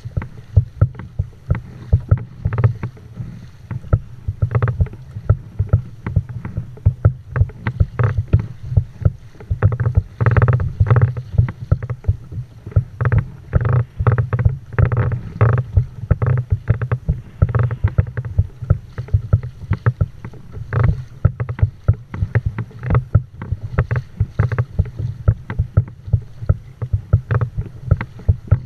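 Water slapping and splashing against the hull of a kayak moving through choppy sea: many irregular sharp slaps over a steady low rumble, busiest and loudest around the middle.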